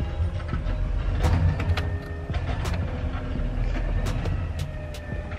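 Heavy diesel engine of a garbage truck rumbling steadily close by, with a few faint steady whining tones over it. Sharp small clicks and rattles of screws and a screwdriver being handled sound over it several times.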